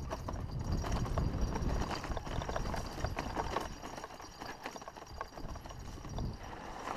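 Haro hardtail mountain bike rolling fast down a rough dirt trail: a steady low rumble with irregular rattling clicks and knocks as the bike jolts over the ground, loudest during the first few seconds.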